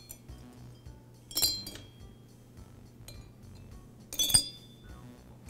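Metal screws being dropped into the screw holes of a two-stroke engine's finned metal cylinder, clinking sharply with a short metallic ring. It happens twice, about a second and a half in and again a little past four seconds.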